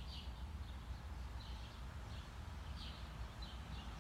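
A small bird chirping in short, repeated notes at an irregular pace of about two a second, over a steady low rumble.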